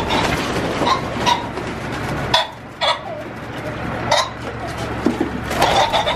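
Ring-necked pheasants in a holding pen moving about, with short sharp calls and wing flutters over a noisy background.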